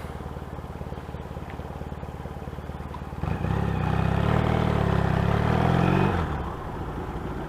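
Yamaha XS650 parallel-twin motorcycle engine running at low throttle, then opened up about three seconds in and pulling harder and louder for about three seconds before the throttle is rolled off.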